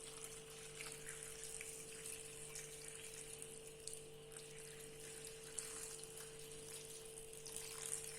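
Boiling water being poured steadily over sliced cabbage in a bowl: a faint, even splashing trickle with small ticks of water hitting the cabbage.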